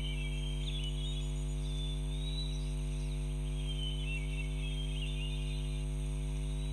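Birds chirping in short, scattered calls over a steady low hum that is the loudest part of the sound.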